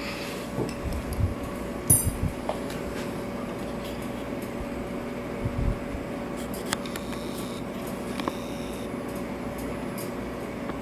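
Steady room hum with a faint held tone, broken by a few soft handling knocks on a table and one sharp metallic click about two seconds in, as a thin steel rod is set down among plastic parts.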